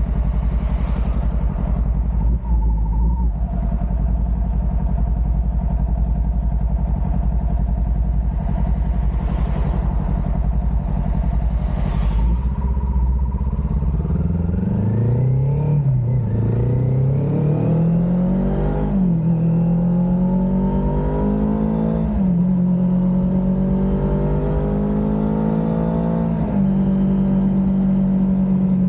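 Kawasaki Ninja 400's parallel-twin engine idling, then pulling away about halfway through and accelerating up through the gears. Its pitch climbs and drops back at each of four upshifts before it settles into a steady cruise.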